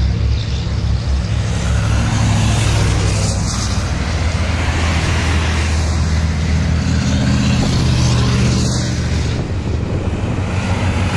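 Heavy diesel trucks in a convoy driving past one after another, engines running steadily under load. The low engine note swells in the middle as the next truck draws near, then eases slightly near the end.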